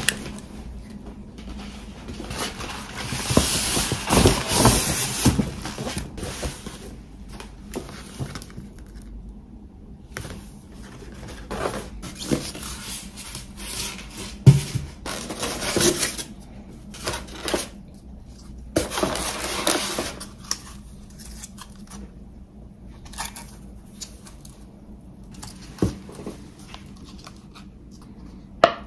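Delivery packaging being handled and opened: an insulated carrier bag and a styrofoam cooler box with ice packs. Irregular rustling and crinkling comes in bursts, loudest about three to six seconds in, with scattered knocks and clicks between.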